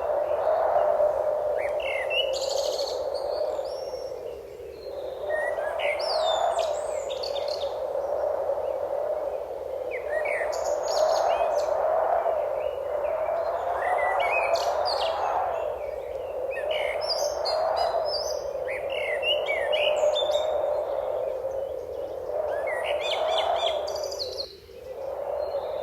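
Birds chirping and calling: many short whistles that glide up and down in pitch, scattered throughout. Beneath them runs a steady wash of sound that swells and fades every few seconds and drops out briefly near the end.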